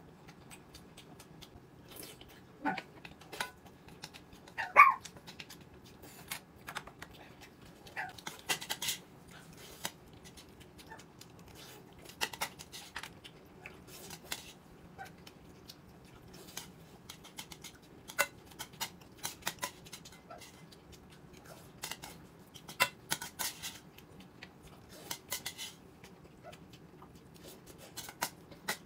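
Scattered light clicks and clinks of people eating at a table, with chopsticks and tableware knocking together. About five seconds in there is one short, loud, high-pitched sound.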